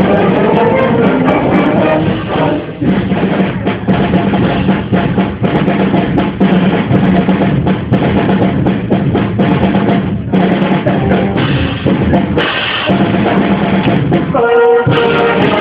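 Live band music, drum kit prominent: pitched instruments play at first, then the drums carry most of the middle, with snare and bass-drum hits, before the tuned instruments come back in near the end.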